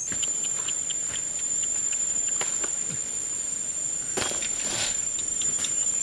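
An insect's steady high-pitched drone, with a few soft rustles and steps on dry ground and grass, most of them about four seconds in.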